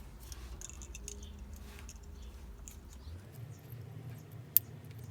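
Faint small clicks and rustling of hands handling automotive wires and crimp connectors, with one sharp click about four and a half seconds in.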